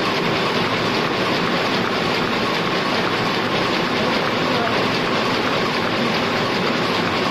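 Heidelberg SORMZ two-colour offset printing press running, a steady, unbroken mechanical noise.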